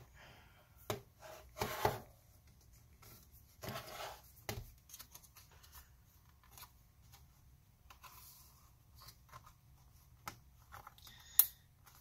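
Samsung Galaxy Book Flex Alpha laptop's bottom cover being pried loose by hand, its retaining clips popping free. Scattered sharp clicks and short scrapes and rubs of the panel, with the loudest snap near the end.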